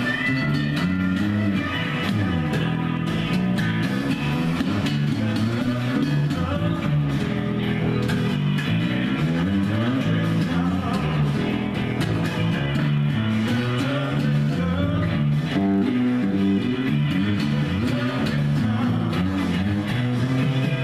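Guitar-led blues-rock music with an electric bass line, playing steadily.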